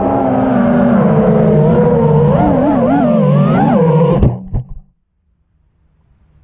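FPV racing quadcopter's four 2306 brushless motors and 5-inch three-blade props whining, their pitch rising and falling with the throttle, recorded on the quad itself. About four seconds in, the quad hits the grass with a few knocks, the motors cut out, and only a faint hiss is left.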